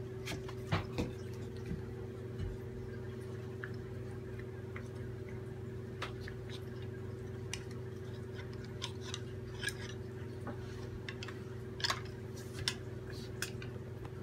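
Scattered light clicks and taps of a KitchenAid wire whisk attachment and a wooden paddle knocking against a metal colander as fresh butter is scraped off the whisk, over a steady low hum.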